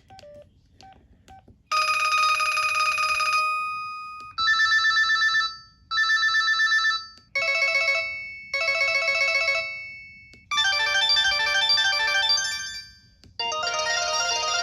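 LG VX3200 flip phone's built-in ringtone music playing through its speaker: a run of short synthesized chords, each held about a second and dying away, then a busier melody near the end. A few faint short beeps come first.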